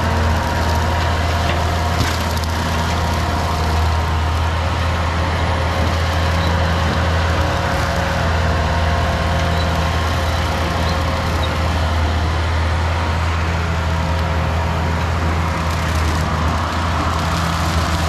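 Bobcat skid steer's diesel engine running steadily, driving its EZ Mow 72-inch brush cutter through grass and undergrowth: a constant low hum with a steady higher whine on top.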